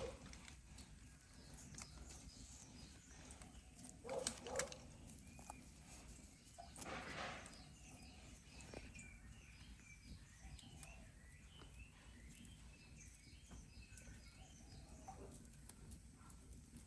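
Faint birdsong: small birds chirping over and over. Two soft knocks come about four seconds in, and a brief rustle about seven seconds in.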